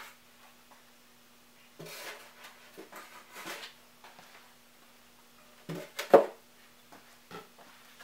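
Cardboard and foam packaging being handled: a few short bouts of rustling and scraping, then two sharp knocks close together about six seconds in, the second the loudest, and a faint click about a second later.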